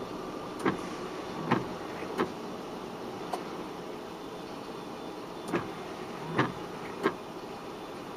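Steady hum of a car cabin heard through a dashboard camera while the car sits stopped, broken by about seven short, sharp clicks at uneven intervals.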